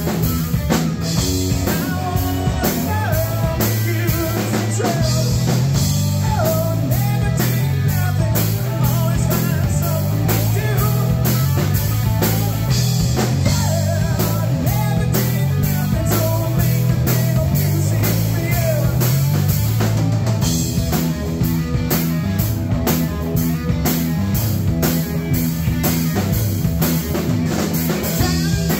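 Rock trio playing live: electric guitar, electric bass and drum kit, with a steady driving drum beat under a bass line and electric guitar.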